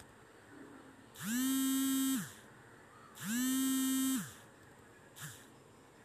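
Realme smartphone vibrating for an incoming call: two buzzes about a second long, two seconds apart, each rising in pitch at the start and dropping at the end, then a brief weak buzz near the end. No ringtone plays because the phone is set to silent.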